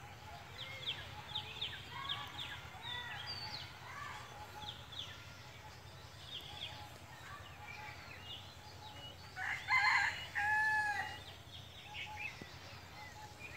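A rooster crows once, a little past the middle, and it is the loudest sound. Small birds chirp throughout, over a faint steady low hum.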